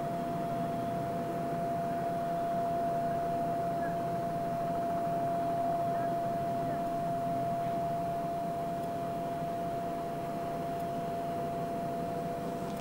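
Steady machinery drone from a cargo ship's engines passing close by, with a constant whine held at one pitch.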